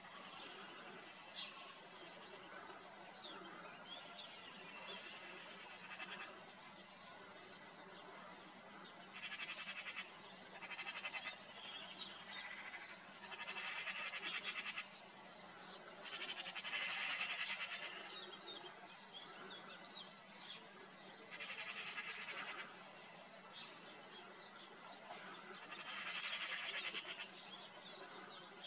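Eurasian magpies chattering in harsh, rapid rattles, in about seven bursts of one to two seconds each, over a background of small songbirds chirping.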